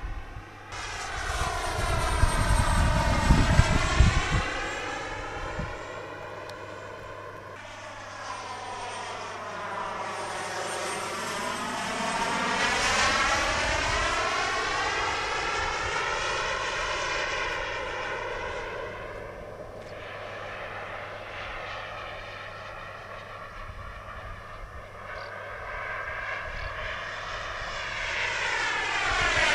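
The turbine engine of an RC F-16 model jet flying passes, its high whooshing jet noise swelling and fading with a sweeping, phasing tone as it goes by. It is loudest about two to four seconds in and again building near the end.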